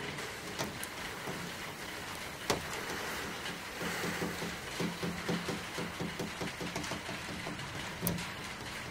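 Steady light rain falling, with a few faint clicks and one sharp tick about two and a half seconds in. From about four seconds in, a low pulsing hum joins the rain, then fades near the end.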